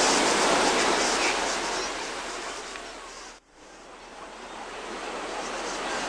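Beach ambience: the steady rush of ocean surf. It fades about two seconds in, cuts out for an instant about three and a half seconds in, then builds back up.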